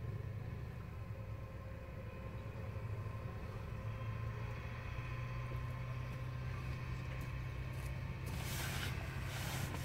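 An engine running steadily, a low even hum, with two short bursts of hiss near the end.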